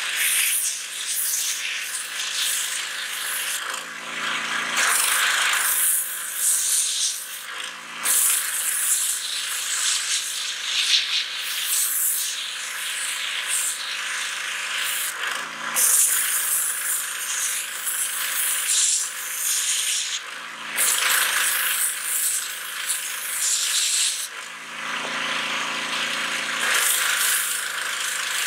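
Pressure washer jet hissing as it blasts against a pumpkin's skin, the hiss swelling and dipping as the stream moves. A lower buzzing hum comes in briefly about five times.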